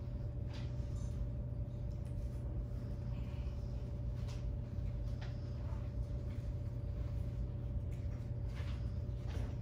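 Room tone: a steady low hum with a thin steady tone above it, and a few faint scattered clicks and knocks.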